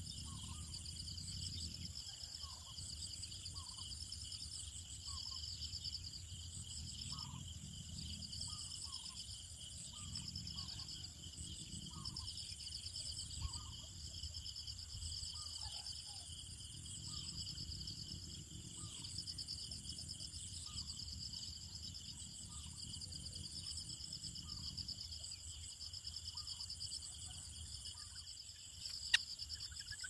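A steady chorus of insects, crickets among them, trilling with a fast pulse, over a low rumble that swells and fades. Short faint calls repeat about once a second, and there is one sharp click near the end.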